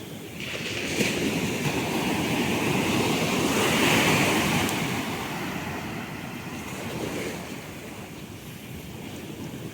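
Sea waves: the rush of one wave swells in about half a second in, is loudest around four seconds, then fades away.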